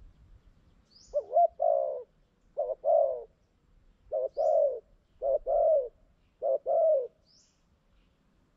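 Spotted dove cooing: five two-part coos, each a short note followed by a longer one, at roughly one-second gaps. A small bird gives three brief high chirps between them.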